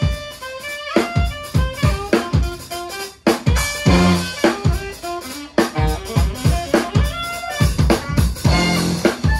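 Band music with a drum kit keeping a steady beat under pitched instrument notes.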